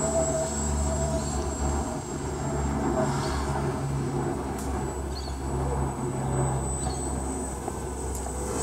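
Walkera 250 FPV quadcopter flying, its motors buzzing with a pitch that wavers as the throttle changes, over a steady low rumble and a thin high tone.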